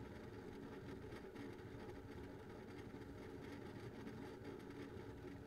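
Synology DS920+ NAS with two Western Digital Ultrastar HC330 7200 rpm data-center hard drives running under active use: a steady, low hum from the spinning drives, with a few faint, irregular ticks from drive activity.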